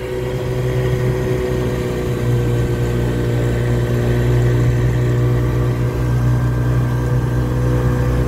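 Mercury 110 two-stroke outboard motor running under way, pushing the boat along; it gets louder over the first couple of seconds, then runs at a steady pitch.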